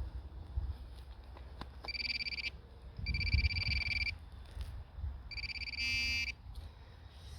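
Metal detector buzzing in short high-pitched bursts as it sounds off on a buried target, three times in about four seconds, the last burst turning into a louder, rougher tone near the end. Low rustling and handling noise underneath.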